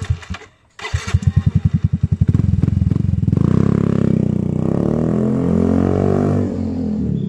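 Yamaha Mio i 125 single-cylinder four-stroke engine running through an Apido Powerpipe racing exhaust with no silencer. It catches, cuts out briefly about half a second in, then fires again as a loud string of separate exhaust pulses, and from about two and a half seconds in revs up and holds high, easing off slightly near the end.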